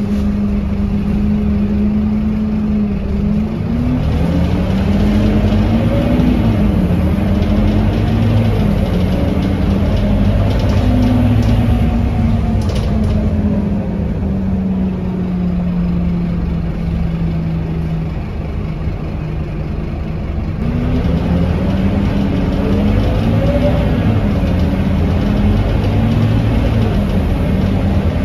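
Scania K230UB bus's diesel engine running on the move, its pitch climbing and falling back several times as the bus accelerates and changes gear. About two-thirds through it drops to a lower, quieter tone, then climbs again.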